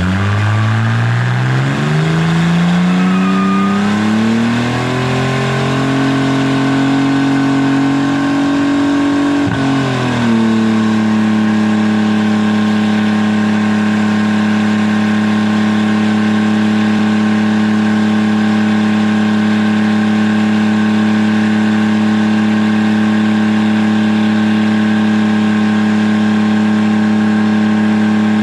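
Car engine revving up and held at high revs during a skid. It drops briefly about ten seconds in, then holds steady and high again.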